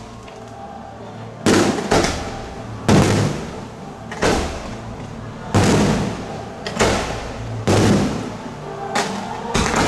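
Aerial fireworks shells bursting overhead: about nine sharp bangs a second or so apart, each dying away over about a second.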